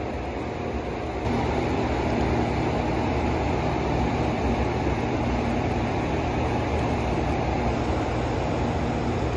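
Steady rush of fast river current over rocks, getting a little louder about a second in.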